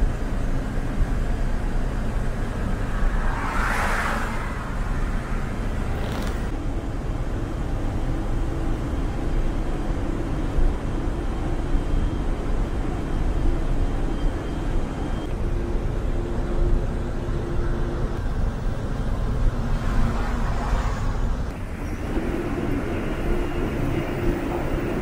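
Ashok Leyland sleeper coach cruising at highway speed, heard from the front of the cabin: a steady low engine and tyre rumble with road noise. Louder swells of noise come about four seconds in and again near twenty seconds, and the sound changes near the end as the bus runs into a road tunnel.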